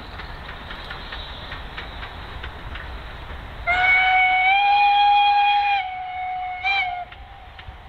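Steam locomotive whistle: one loud blast of about two seconds that rises slightly in pitch, then drops to a quieter note with a brief extra toot before it stops. Before it, the steady rumble and light clicking of the train running on the track.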